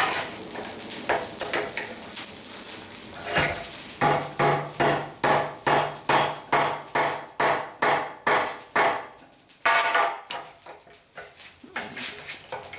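Hammer striking hot steel on an anvil in a steady run of about fifteen ringing blows at roughly two a second, after a few seconds of steady hiss. One harder blow is followed by a few lighter taps near the end.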